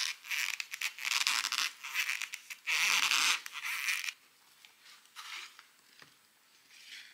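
Serrated bread knife sawing through a bagel in a series of scraping back-and-forth strokes, which stop about four seconds in.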